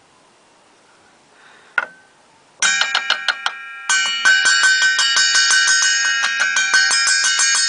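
Steel circular saw blade struck with metal wrench pliers, ringing like a bell. A single strike comes about two seconds in, then a quick handful of strikes, and from about four seconds in a fast steady run of about six strikes a second, imitating the hammer of an electric alarm bell, with the ringing tones building and holding.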